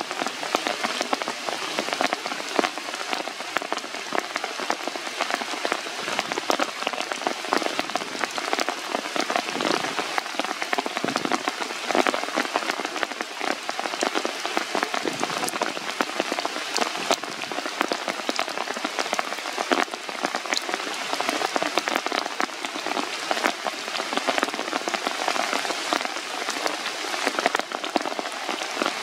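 Steady rain falling on the leaves of a forest canopy, a dense patter of many individual drops over an even hiss.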